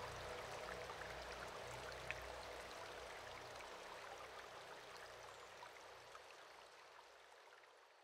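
Faint running-water ambience, an even hiss with small scattered ticks and drips, fading out gradually.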